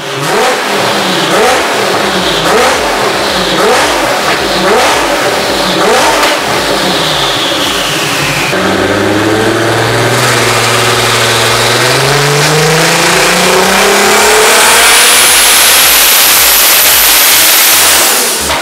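Tuned Nissan Patrol engine revving: a run of short rising revs, then from about halfway a long pull climbing steadily in pitch, with a high whine rising over it near the end.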